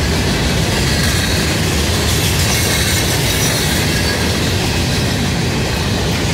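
Empty open-top hopper cars of a CSX freight train rolling past close by: a loud, steady rumble of steel wheels on rail, with a faint high wheel squeal.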